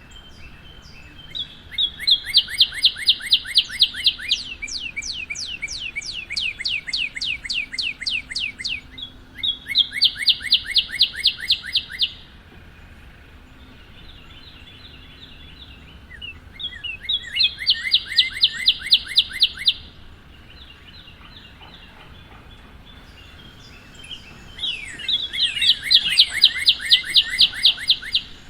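Northern cardinal singing: four phrases of rapidly repeated clear, slurred whistles, the first longer and running on into a series of slower down-slurred notes, with pauses of a few seconds between the later phrases.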